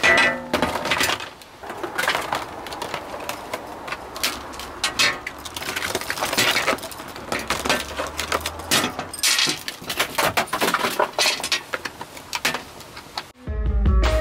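Stiff clear plastic blister packaging being pulled apart and handled on a glass tabletop: a dense run of irregular crinkles, crackles and clicks. Music with a beat comes in near the end.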